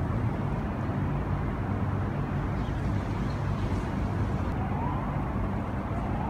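Sandstorm wind buffeting the microphone: a steady low rumble and hiss. Near the end a faint siren wails briefly in the distance.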